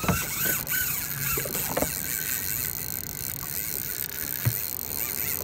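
Wind and water noise on a small fishing boat drifting at sea, with a few short knocks and some faint squeaks in the first second or so.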